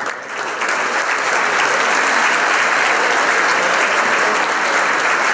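Large audience applauding: steady, dense clapping that fills in just after the start and holds evenly throughout.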